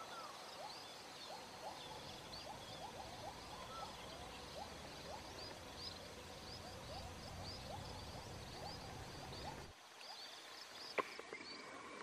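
A faint chorus of many small birds chirping in quick, repeated short calls. A little before the end the sound changes abruptly, and a single sharp click follows about a second later.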